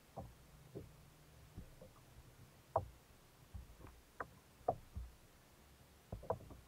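Irregular soft knocks and taps of gear being handled aboard a sit-on-top kayak, about ten in all, over a faint low hum.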